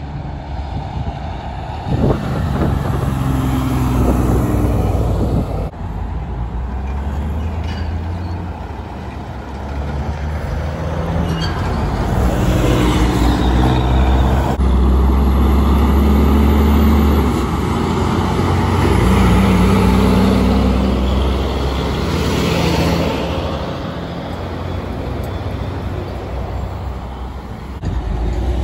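Heavy diesel trucks driving past one after another, the engine note swelling and fading as each goes by. There is a sharp knock about two seconds in.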